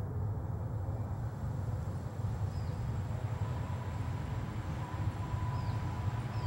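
Steady low rumble throughout, with a few faint, short high chirps in the second half.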